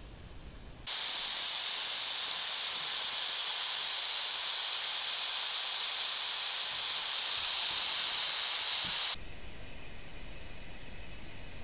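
A steady hiss like static or white noise, mostly high-pitched, that starts abruptly about a second in and cuts off just as abruptly about nine seconds in.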